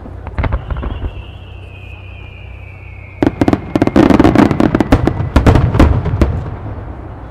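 Japanese starmine fireworks barrage. A few launch pops come first, then a whistle falling slowly in pitch for about two seconds. From about three seconds in, a dense run of sharp shell bursts and crackles lasts about three seconds and then dies away.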